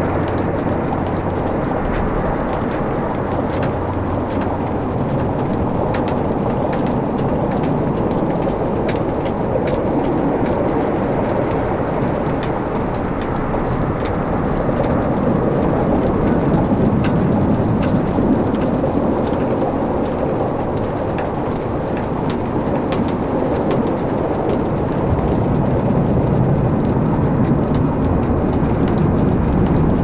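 Wood logs burning in a fireplace: a steady rushing noise of the flames with scattered, irregular sharp crackles and pops.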